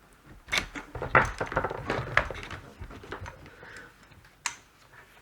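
Hands handling equipment and cables on a bench: a scatter of light clicks, taps and small knocks, with one sharper click near the end.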